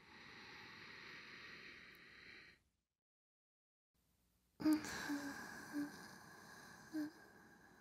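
A soft female breathy exhale lasting about two and a half seconds, then a moment of silence. About a second later, close-miked ASMR mouth sounds start with a sharp click and run on as a few short clicks and smacks, the first the loudest.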